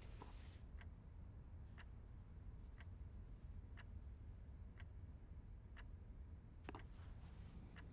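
Single sharp clicks about once a second, unevenly spaced with a quick pair near the end, over a low steady hum of quiet room tone.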